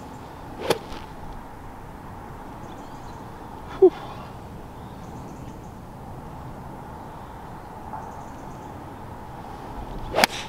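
Steady outdoor background broken by a sharp click under a second in and another near the end, one of them a golf club striking the ball off the tee. A short falling squeak about four seconds in is the loudest sound.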